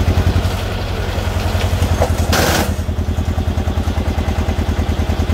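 Tractor engine running with a rapid, even chugging beat. A short hiss comes about two and a half seconds in.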